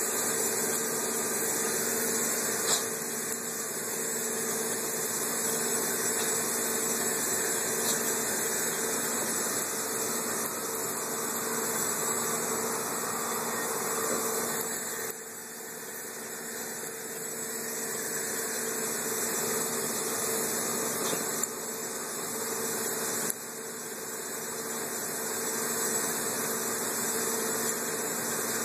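A steady mechanical hum with a constant hiss, and a few faint clicks.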